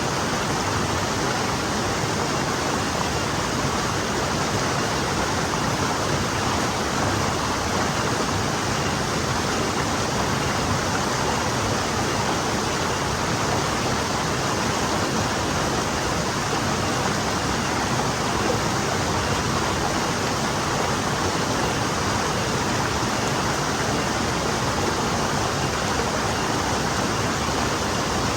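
A forest stream flowing steadily, an even rush of water.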